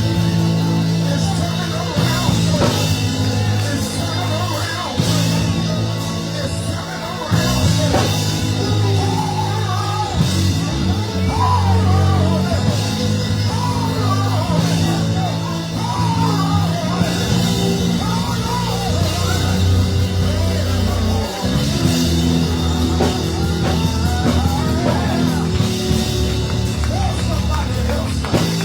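Live church band music with drums, held low chords that change every few seconds, and singing.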